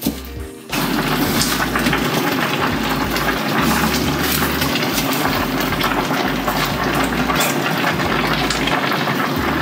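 A steady rush of running water, like a kitchen tap, starts abruptly about a second in.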